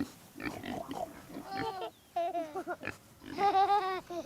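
Pigs grunting and oinking: short grunts at first, then longer pitched oinks from about two seconds in, loudest near the end.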